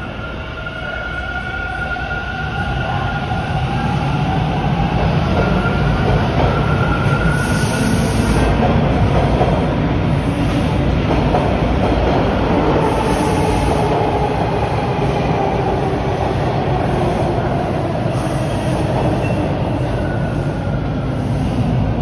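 Bombardier T1 subway train pulling out of the station: motor whine and wheel-on-rail rumble grow louder over the first several seconds as it gets under way, then stay loud.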